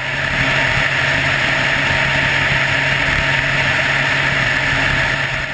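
Steady drone of an aircraft in flight: a constant engine hum under a loud rush of air noise, with no change in pitch.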